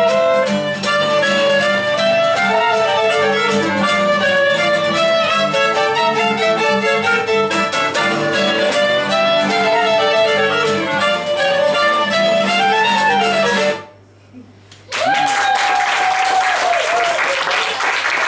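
Violin, clarinet and acoustic guitar trio playing a folk-style tune that ends sharply about three-quarters of the way through. After a brief pause the audience breaks into applause, with one long whoop at the start of it.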